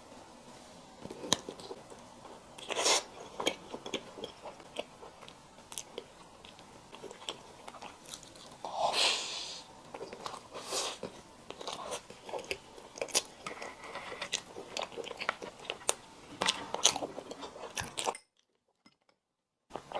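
Close-miked eating: bites and chewing with many short crunchy crackles, and one longer, louder bite about nine seconds in. The sound drops out completely for a moment near the end.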